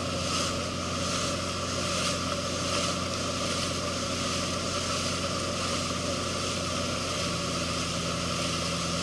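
Towing boat's engine running steadily under way, its tone shifting slightly about seven seconds in, over the steady rush of the churning wake.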